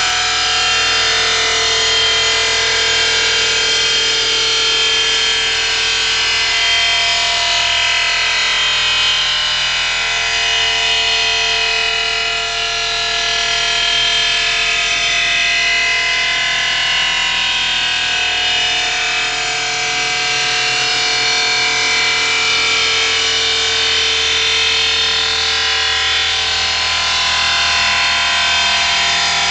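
OMAG Mill5 five-axis CNC machining centre roughing out marble vases: the spindle-driven tool grinding steadily into the stone, a loud continuous grinding with a whine of several held pitches over it.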